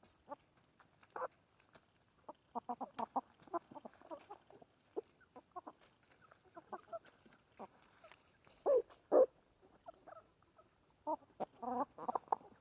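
Chickens clucking while they feed: short clucks in irregular clusters, busiest about three seconds in, again around nine seconds, and near the end.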